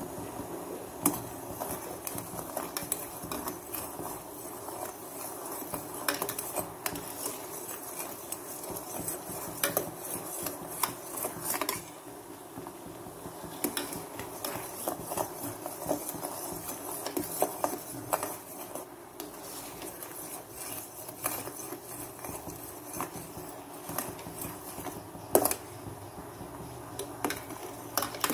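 A spoon scraping and clinking irregularly against a pan as black sesame seeds are stirred, over a steady hiss. There is a sharp knock about a second in and a louder one near the end.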